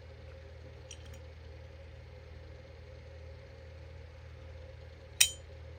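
Die-cast metal toy truck clinking as it is handled: faint ticks about a second in, then one sharp metallic clink near the end, over a steady low hum.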